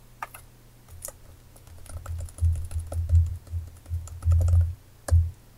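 Fingers pressing and smoothing paper onto a card on a tabletop: a run of light clicks and taps, with dull thumps between about two and five seconds in.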